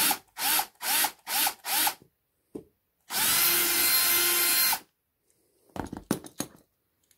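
Milwaukee cordless drill drilling out the baseplate rivet of a diecast Matchbox Lesney Dodge crane truck: five short trigger bursts, each spinning up, then one steady run of about a second and a half. Near the end there is a quick cluster of light clicks.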